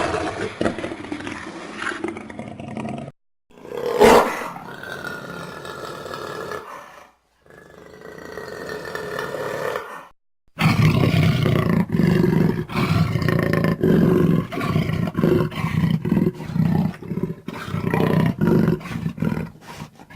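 Baryonyx dinosaur sound effects: a series of separate roars and calls with short silent gaps between them. There is a sharp, loud roar about four seconds in and a rising call near the middle. The second half is a long run of short, closely repeated deep calls.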